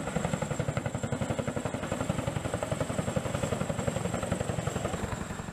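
CH-47 Chinook tandem-rotor helicopter's rotors making a rapid, even chop, with a steady high whine over it, easing off slightly near the end.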